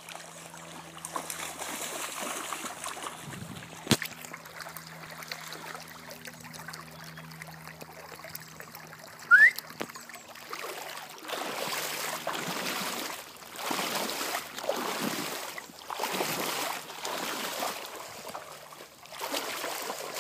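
Cocker spaniel wading through a shallow stream, with water trickling and splashing around its legs; from about halfway in, the splashing swells about every second and a half as it moves through the water. A brief, loud, rising squeak about nine seconds in.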